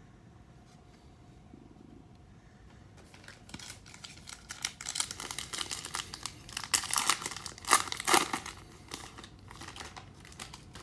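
Foil trading-card pack wrapper crinkling and being torn open by hand, starting about three seconds in and loudest a little past the middle.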